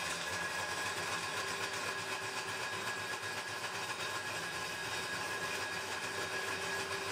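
Home-built table saw running, its blade cutting a wood blank that a cordless drill turns against it in a lathe jig, shaping a wooden ball. A steady machine noise with a faint high whine.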